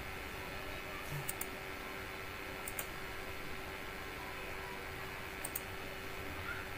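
Computer mouse button clicked three times, each click a quick double snap of press and release, as survey options are ticked. A faint steady hum runs underneath.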